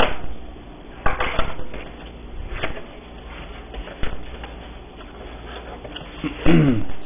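Cardboard box being opened by hand: a blade slitting the packing tape, then the flaps pulled back, with scrapes and light knocks. Near the end comes a short squeak that falls in pitch, the loudest sound here.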